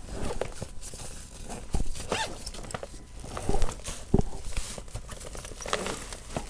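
A zippered fabric backpack being unzipped and pulled open by gloved hands, then its contents handled: zipper sounds, fabric and paper rustling and a few light knocks.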